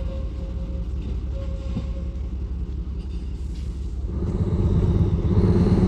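Lxd2 narrow-gauge diesel locomotive's engine running with a steady low rumble, growing louder about four seconds in as it throttles up.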